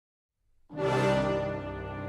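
Intro music: after a moment of silence, a held chord comes in abruptly about two-thirds of a second in and sustains.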